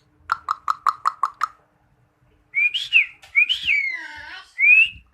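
Pet black starling (jalak hitam) calling. It gives a quick run of about seven sharp, clipped notes, goes quiet for about a second, then makes a string of whistled notes that rise and fall.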